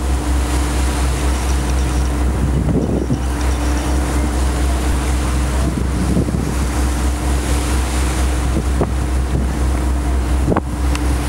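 Tour boat's engine running at a steady low drone while under way, with wind on the microphone and water washing past. A brief knock near the end.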